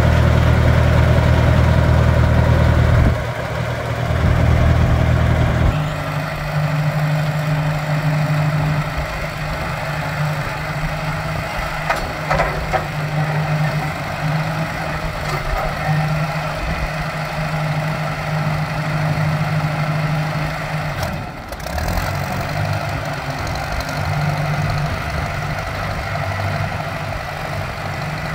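Ford farm tractor's engine running, loud and close for the first three seconds, then dropping in level in two steps and running steadily on as the tractor drives about.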